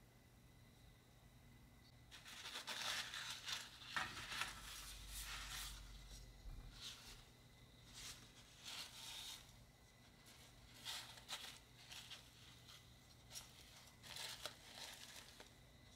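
A white pad rubbed by hand over the clear-coated plastic body of a scale model car: fine sanding and polishing of the clear coat. A quick run of scratchy strokes starts about two seconds in, followed by shorter separate strokes.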